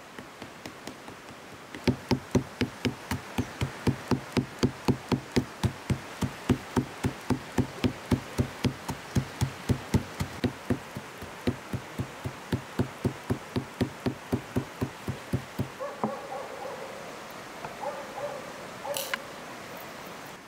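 Stone pestle pounding coarse salt in a stone mortar: steady knocks, about three a second, stopping a few seconds before the end, after which a few softer scraping sounds follow.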